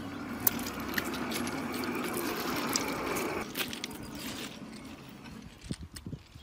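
Krab-S-Light track-measuring trolley rolling along the rails as it is pushed, a steady rolling noise with small clicks and rattles that fades out about four seconds in. A few sharp knocks follow near the end.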